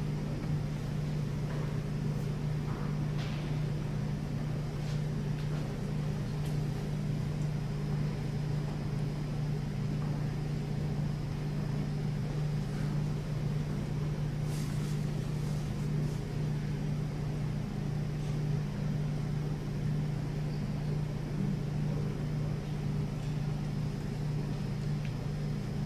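Steady low mechanical hum of a large, silent gymnasium's room tone, with a few faint knocks and shuffles.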